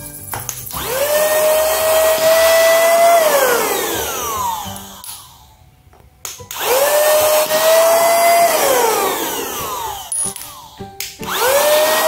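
Small motor of a portable cordless handheld vacuum cleaner switched on with a rising whine, running for about two seconds, then winding down with a falling whine. This happens twice, with a few clicks in between, and it starts up again near the end.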